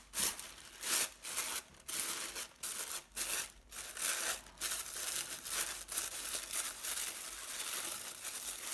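Tissue paper rustling and crinkling as the layers of a tissue paper flower are pulled apart and fluffed by hand. Short crinkles about every half second at first, then a near-continuous rustle through the second half.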